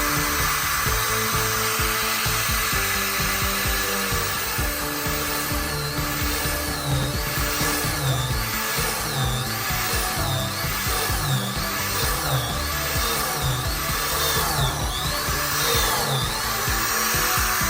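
Electric drill boring into wood with a woodworking bit, over background music.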